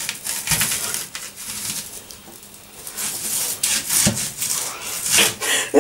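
Sharp kitchen knife slicing lengthways through a large onion on a wooden chopping board: a rasping cut with small clicks, and one sharp knock on the board about four seconds in.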